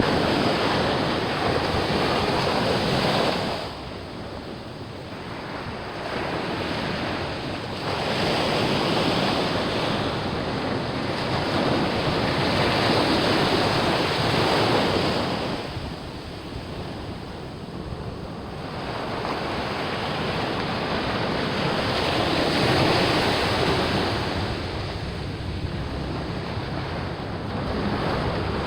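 Pacific Ocean surf breaking on the shore, the wash of the waves swelling and ebbing in long surges with quieter lulls between them, with wind buffeting the microphone.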